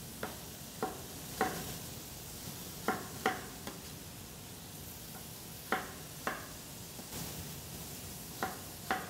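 Chef's knife dicing a peeled apple on a wooden cutting board: about nine sharp knocks of the blade hitting the board, irregular and often in pairs, over a steady low hiss.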